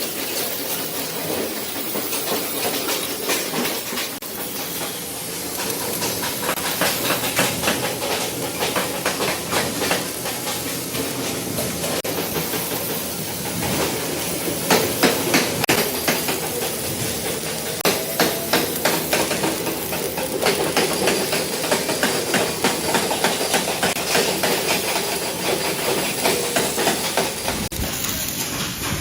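Metalworking workshop noise: rapid, irregular metal knocks like hammering, over a steady hiss.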